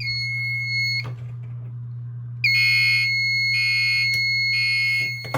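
Fire alarm system going into alarm after a light switch wired as an initiating device is used. There is a steady high-pitched tone, a click about a second in, then from about halfway the steady tone again with three pulsed blasts of the taped Gentex Commander 3 horn over it in the temporal-three evacuation pattern.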